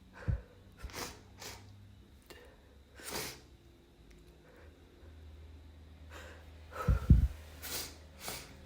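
A person stifling sneezes: short breathy sniffs and huffs, a hissing held-in sneeze about three seconds in, and a louder muffled sneeze with a low thump about seven seconds in, followed by another breathy burst.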